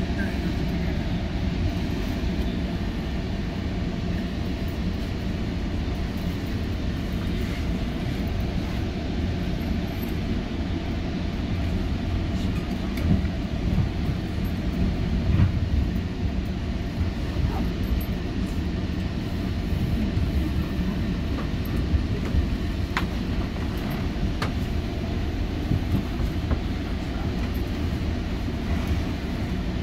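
GO Transit commuter train running between stations: a steady low rumble with a few faint clicks scattered through.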